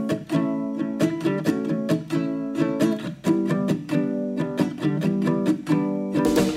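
Upbeat background music of a strummed acoustic guitar, keeping a steady strumming rhythm.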